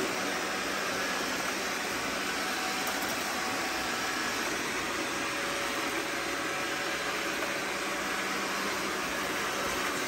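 Two robot vacuums, a Roborock S4 and an iRobot Roomba 655, running at the same time: a steady whir of suction fans and brushes, with a few faint steady tones in it.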